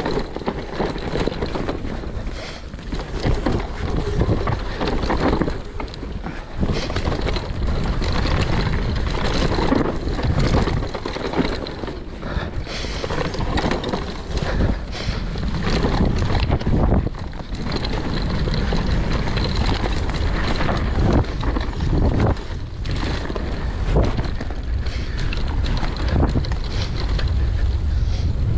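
Wind rushing over the camera's microphone while a mountain bike is ridden fast along a dry dirt trail, with frequent knocks and rattles from the bike going over bumps.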